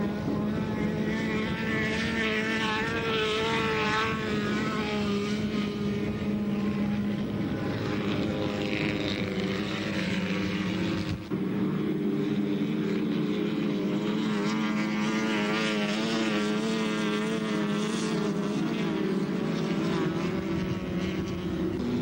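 Steady engine noise from race cars running on a frozen-lake ice track, with wavering engine pitches on top and a brief drop about 11 seconds in.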